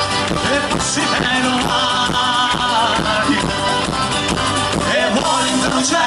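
Calabrian tarantella played live by a folk band, with acoustic guitars strumming, congas and drum kit keeping a fast, even beat, and singing over the top.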